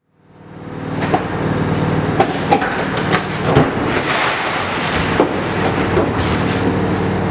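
Demolition work: a machine's engine running steadily, with a series of knocks and crashes as a section of masonry structure topples and breaks up.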